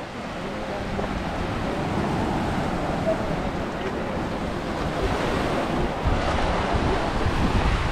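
Small waves breaking and washing up a sandy beach, with wind buffeting the microphone; the buffeting grows stronger about six seconds in.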